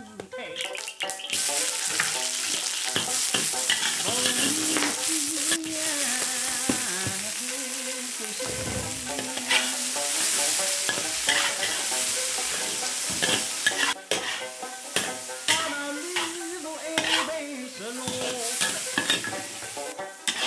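Duck tongues sizzling in a wok of reducing dark sauce as they are stirred and tossed, with scattered clicks and scrapes in the pan. The sizzle starts about a second in and eases off near the end, over soft background music.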